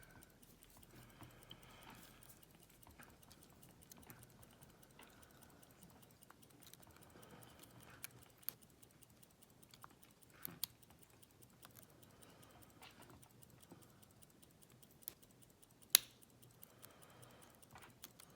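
Faint scraping and light clicking of a lock pick and tension wrench working the pins inside a Master Lock lockout padlock, with a few sharper ticks and one clear, sharp click near the end. He calls that click either a pin set or just the pick falling off, since he felt no movement in the core.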